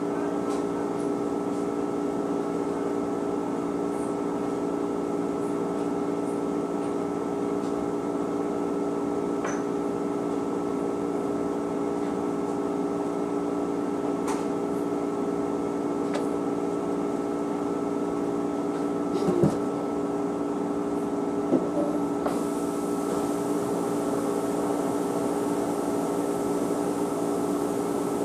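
Laundry machine running with a steady hum of several tones, with a couple of light knocks about two-thirds of the way through.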